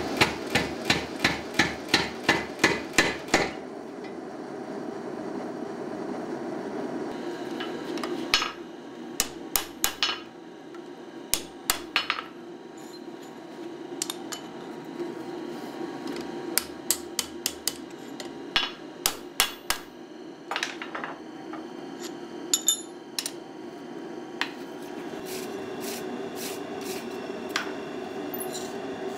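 A power hammer strikes a red-hot steel bar in a fast, even run, about four blows a second, for roughly three and a half seconds. After a pause, a hand hammer strikes hot steel on the anvil in irregular groups of ringing blows. A steady drone runs underneath.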